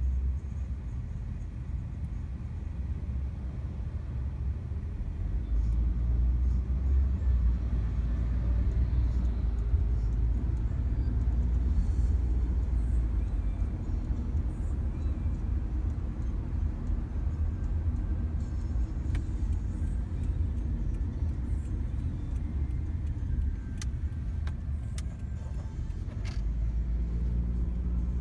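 Steady low rumble of a taxi's engine and tyres heard inside the cabin while driving through traffic, with a few faint clicks in the second half.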